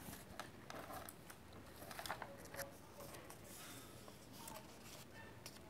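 Faint rustling and clicking of paper as a page of a spiral-bound notebook is handled and turned over.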